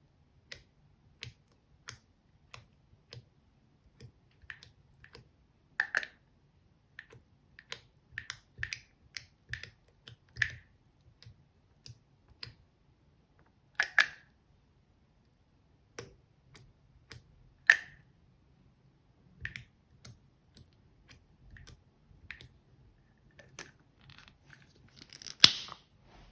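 Slime being handled and squeezed, making irregular sticky clicks and small pops, with a longer, louder crackle near the end.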